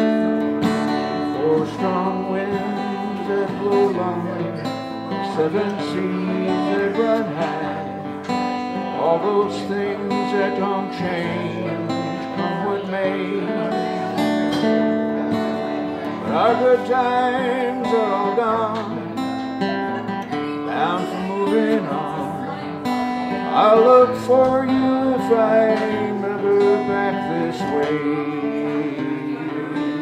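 Solo Guild acoustic guitar playing an instrumental passage: a picked folk melody over strummed chords.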